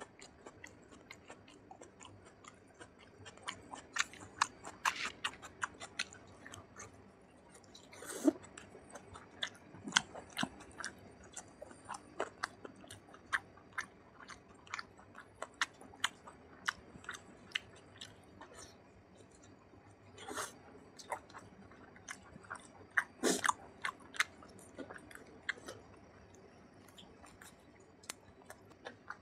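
Close-up wet chewing of rice and oily mutton fat curry: a continuous, irregular run of sticky mouth clicks and smacks, with louder clusters of bites now and then.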